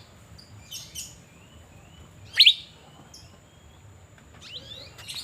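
Asian fairy-bluebird (cucak biru) calling: short chirps and whistled notes, with one much louder sharp call about two and a half seconds in.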